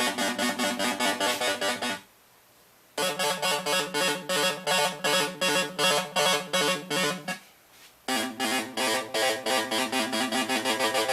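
Electronic sound-effects synthesizer sounding a rapidly repeating pitched electronic tone, about five pulses a second, cutting out for about a second two seconds in and again briefly near the end.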